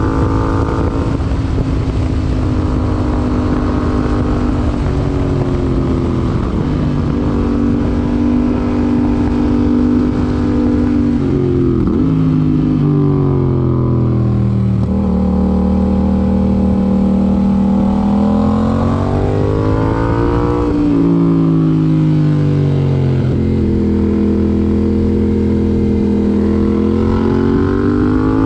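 A Yamaha MT-07's parallel-twin engine running through an IXIL IXRACE MK2 aftermarket exhaust while riding. It holds steady speed for stretches, and its pitch rises and falls several times as it speeds up and slows down.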